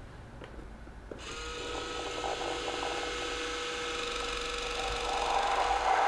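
Mattel 'The Child' (Baby Yoda) animatronic plush running its demo mode: its small electric motors start up about a second in and whir steadily and loudly, with a rattle, as they drive the arm in a jittery motion.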